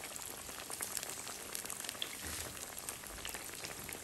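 Beer-battered, panko-crusted wagashi cheese slices frying in hot vegetable oil: a steady sizzle with many small crackles and pops.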